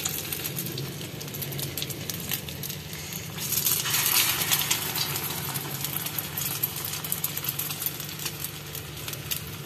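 Egg-coated potato kababs shallow-frying in oil on a flat griddle: a steady sizzle full of small crackles and spatters. It grows louder for a couple of seconds about three and a half seconds in, as another egg-dipped kabab goes into the oil.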